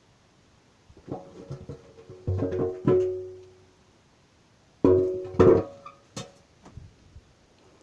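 Metal parts of a motorcycle being handled during disassembly: two clusters of sharp knocks, each leaving a short pitched ring that dies away within about a second.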